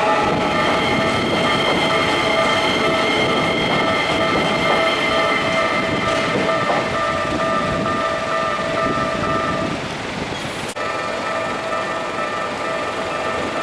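A commuter train passing over a Japanese level crossing, with wheels rumbling and clattering on the rails, while the crossing's electronic warning bell rings on in several steady high tones. A sharp break comes about two-thirds of the way through, and then the bell continues.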